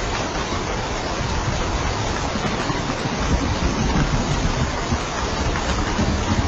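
Steady rain falling on a roof, an even hiss with a low rumble underneath.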